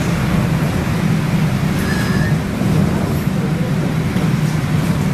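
Steady cabin noise inside a Trolza-5265.00 Megapolis trolleybus in motion: a continuous low rumble from the running gear and body, with a brief faint high tone about two seconds in.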